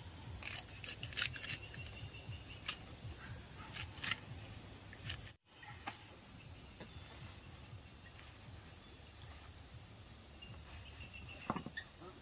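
Insects singing in one steady, high, unbroken tone, with scattered sharp clicks and taps over the first few seconds. The sound drops out for an instant about five seconds in.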